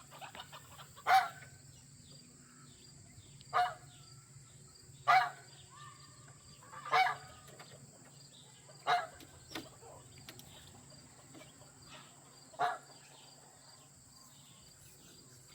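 Geese honking: about six short, loud honks a second or two apart, with a steady low hum underneath.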